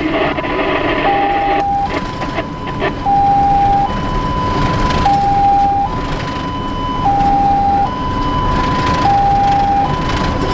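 Fire engine's two-tone hi-lo siren, switching between a higher and a lower pitch about once a second, heard from inside the cab over the truck's engine and road noise.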